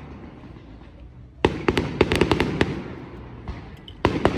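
Fireworks display: a rapid volley of sharp bangs about one and a half seconds in, fading into a rolling echo, then another burst of bangs near the end.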